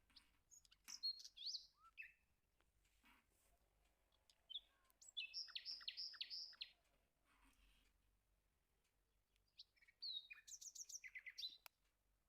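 Faint bird chirping in three short bursts of quick high notes: one about a second in, a run of about five repeated notes around the middle, and a quick series near the end.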